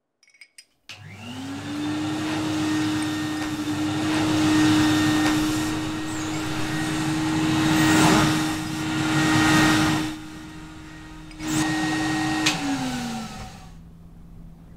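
An electric motor spinning up about a second in, then running with a steady hum over a rush of air that swells and dips. Near the end it winds down, its pitch falling away.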